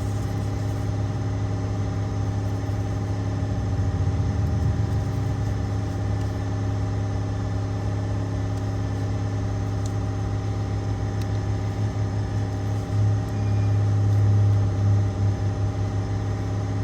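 A car engine idling steadily, with a constant low hum and a slight swell in level now and then.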